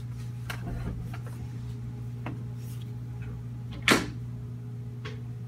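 A sharp knock about four seconds in, as the hand-held ultrasound sound head is set down into a plastic tub of water, with a few faint handling clicks. A steady low hum runs underneath.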